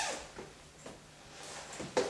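Rustling of a padded coat as it is taken off, with a few soft knocks and a sharp click near the end.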